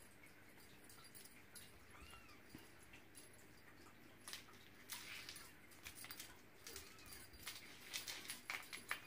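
A kitten's paws and claws skittering and scratching on a hard wood-effect floor as it pounces on a feather toy: a quick run of clicks and scuffs that starts about halfway through and is loudest near the end. Before that there are a few faint, short high squeaks.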